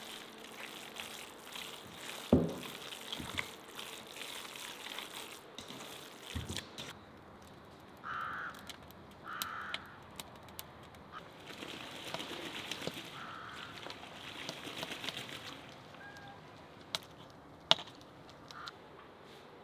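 Yard ambience with a few short, harsh, caw-like bird calls, two of them close together about halfway through. A couple of dull thumps come in the first few seconds and a sharp click near the end.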